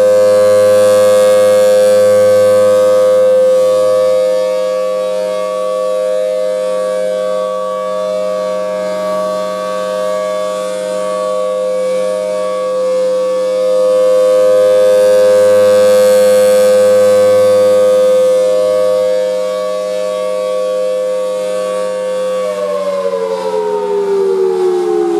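Federal Signal Thunderbolt 1000T tornado siren sounding a steady tone, swelling louder twice as its rotating head sweeps past. About twenty-two seconds in, the pitch starts falling as the siren winds down.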